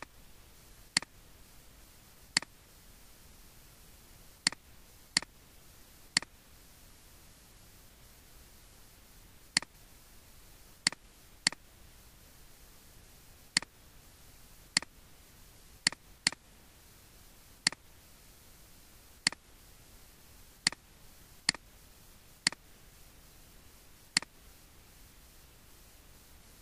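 Computer mouse button clicks, single sharp clicks at irregular intervals, now and then two in quick succession, over a faint steady hiss.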